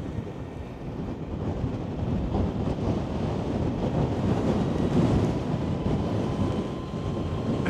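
Wind buffeting the microphone while riding an electric motorcycle, with road and tyre rumble and no engine sound, swelling about halfway through. A faint steady whine comes in about six seconds in.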